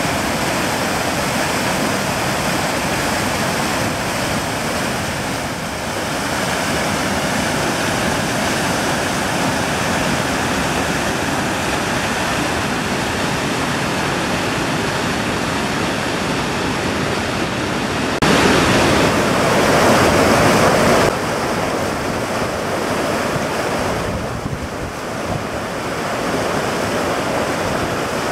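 Rain-swollen desert creek rushing over rock ledges and through rapids: a steady, loud rush of water. About three seconds past the middle the rush swells louder, then drops back.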